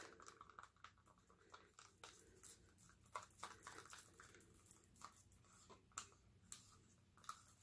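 Faint, irregular clicks and scrapes of a stir stick against the inside of a small plastic cup, mixing pigment powder into enamel paint.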